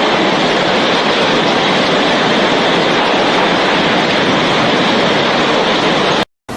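Hurricane storm noise: wind and water rushing in a loud, steady, dense hiss that cuts off suddenly near the end.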